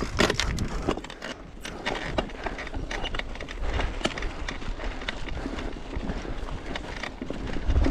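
Mountain bike climbing a rocky dirt trail: tyres crunching over rocks and gravel, with frequent irregular clicks and knocks from the bike over a low rumble.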